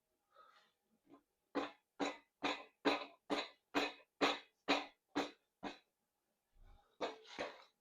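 Rubber mallet tapping the lower girdle of a Honda K24A2 engine, about two blows a second for several seconds, then a short pause and more blows near the end, to break the sealant holding the girdle to the block.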